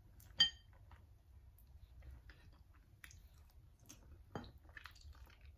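Soft close-up eating sounds of chicken feet cooked in coconut milk being chewed and picked off their small bones by mouth, with scattered small wet clicks and smacks. A short, sharp ringing click about half a second in and a heavier click a little after four seconds stand out.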